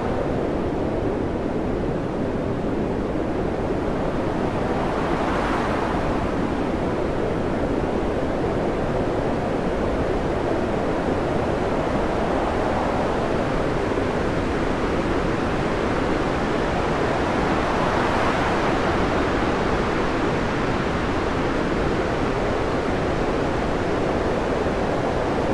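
Storm waves and wind on a ship ploughing through heavy seas, heard from inside the wheelhouse: a steady rush of water and wind that swells louder twice, about five and about eighteen seconds in.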